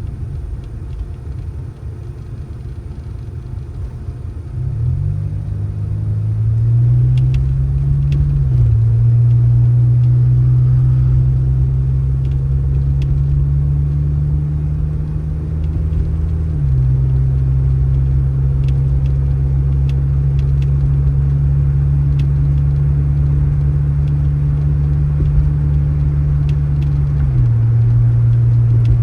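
A motor vehicle's engine running under a low rumble, its steady drone settling into a lower pitch three times, as with gear changes.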